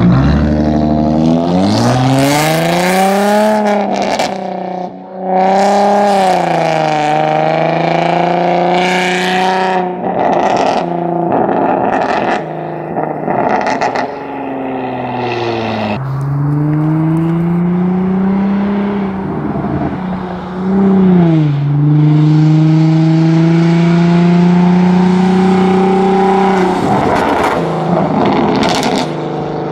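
Infiniti G35's VQ-series V6 through a custom exhaust of resonated test pipes into an X-pipe and dual straight pipes, revving up and down several times. The pitch climbs, holds and drops, with raspy crackling bursts as the revs fall.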